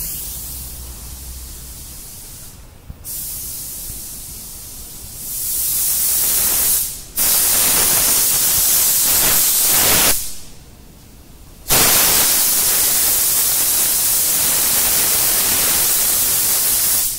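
Compressed-air paint spray gun hissing as the colour coat is sprayed onto a car body. It is softer at first, then comes in long loud bursts with two short breaks between them.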